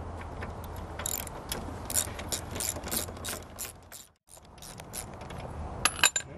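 Ratchet wrench clicking as it turns a 13/16 spark plug socket, unscrewing the spark plug from a Briggs and Stratton 6.5 hp mower engine, about three clicks a second. The sound drops out briefly about four seconds in, and a few louder clicks follow near the end.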